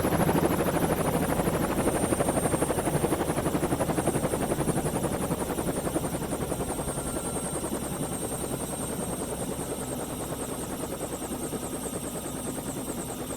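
Helicopter rotor beating in a fast, steady chop with a thin high whine above it, slowly fading away.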